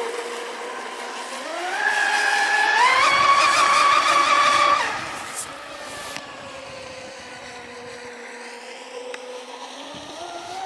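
RC speedboat's motor running at speed on the water, its whine climbing in steps over a couple of seconds as the throttle opens. It holds high and loudest for a couple of seconds, then drops to a lower steady tone as the boat eases off, and starts climbing again near the end.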